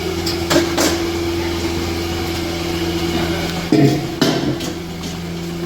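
Steady low mechanical hum of dairy-barn machinery, with a few sharp metallic clanks and knocks scattered through it.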